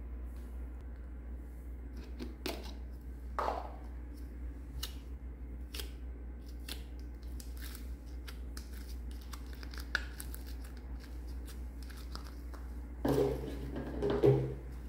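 Hands handling slime and small plastic pieces, with scattered light clicks and taps over a steady low hum. Near the end, red slime is peeled out of its small plastic tub, the loudest stretch.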